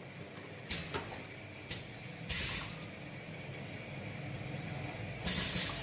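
Automatic oral-liquid bottle filling and capping machine running: a steady motor hum sets in just under a second in. Over it come several short hisses of compressed air venting, the longest a little before half-way and near the end.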